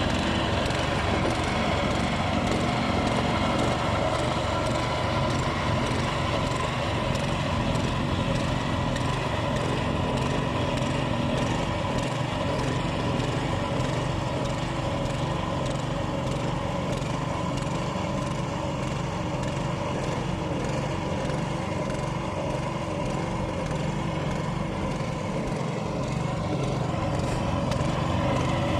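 An engine running steadily at an even speed, with a slight wavering in its pitch.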